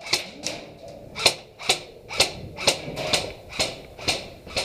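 Airsoft gun firing single semi-automatic shots, about two sharp pops a second, each with a short echo.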